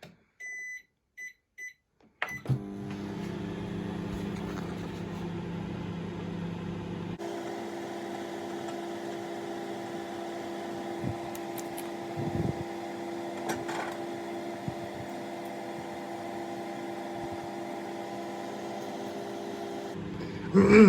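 Microwave oven: several short keypad beeps, then a click as it starts, then a steady running hum as it heats food. The hum's tone shifts about five seconds after it starts, and the hum stops near the end.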